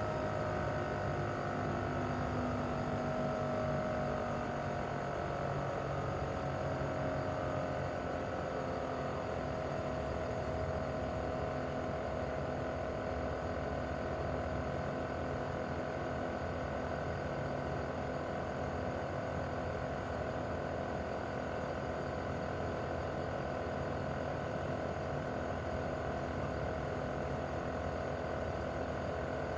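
Mitsubishi Heavy Industries SRC2221T air-conditioner outdoor unit running in cooling mode: its inverter-driven single-rotary compressor and fan make a steady hum with a whining tone. The tone sinks slightly in pitch over the first several seconds as the compressor slows a little, then holds steady.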